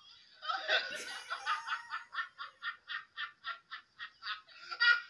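A woman laughing in a long run of short, evenly spaced laughs, about three or four a second.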